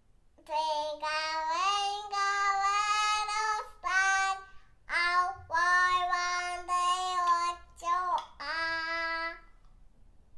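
A small girl singing a children's song solo and unaccompanied, in about five phrases of held, steady notes with short breaths between them.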